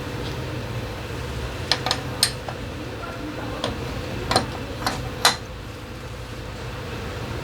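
Metal tools and parts clinking as they are handled, with about six sharp clinks in the middle few seconds, over a steady low hum.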